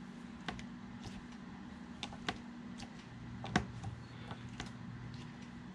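Scattered light clicks and knocks from a 1983 BMW R65's throttle twist grip being worked by hand and let snap back, the loudest about three and a half seconds in. The grip turns stiffly on its original, nearly 40-year-old throttle cables. A faint low hum sits underneath.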